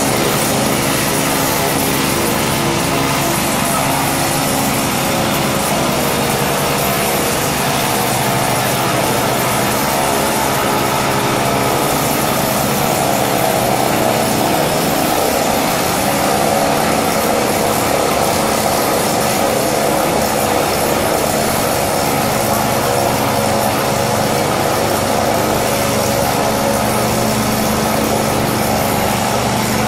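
Small engine of a walk-behind laser screed running steadily under load as the machine screeds wet concrete, with a constant drone and a slight shift in its tone partway through.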